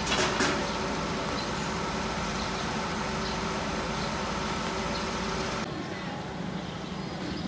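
Outdoor street ambience: a steady hum and hiss with a short burst of noise just after the start. About six seconds in it drops to a quieter background hiss.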